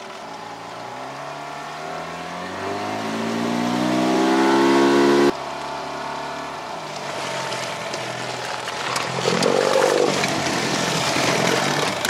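Boat outboard motor accelerating, its pitch rising steadily for about five seconds until it breaks off suddenly; it then runs steadily and picks up speed again near the end.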